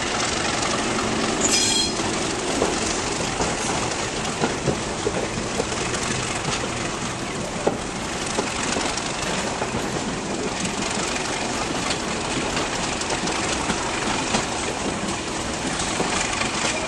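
Train running, heard from an open coach window behind a Class 37 diesel locomotive: a steady rush of wind and running noise with a low engine hum beneath, occasional knocks of the wheels over rail joints, and a brief high wheel squeal about a second and a half in.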